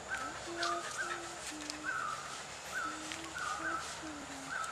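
Short animal calls repeating steadily in two pitches, a low one and a higher one, a few calls a second.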